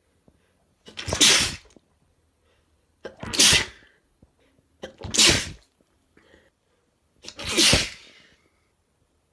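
A man sneezing four times, wet, spraying sneezes about two seconds apart. Each has a short, quieter lead-in just before the burst.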